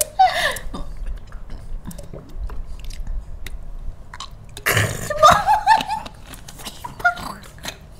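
A person belching loudly about five seconds in, a pitched, wavering burp lasting about a second and a half, after a quieter stretch of faint small clicks.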